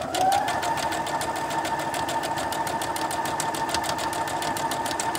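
Brother SM8270 computerized sewing machine stitching out a letter character: the motor winds up in pitch over the first half-second, then runs at a steady speed while the needle ticks rapidly and evenly.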